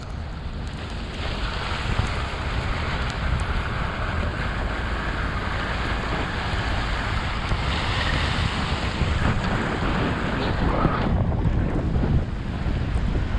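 Truck driving slowly over a snowy, slushy road: a steady low rumble of tyres and engine with a hiss from the tyres, and wind noise on the microphone.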